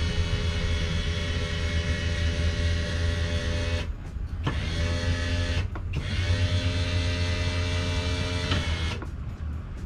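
Electric lift motor of a boat's engine hatch running steadily with a droning hum as the hatch raises. The hum cuts out briefly twice near the middle and stops just before the end, once the hatch is fully open.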